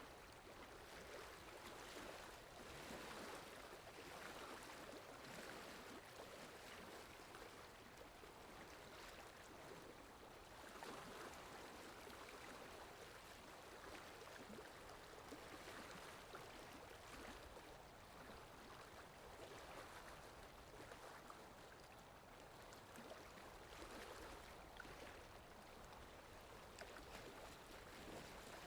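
Faint, steady rush of flowing water from a looped water sound effect, gently swelling and easing every few seconds.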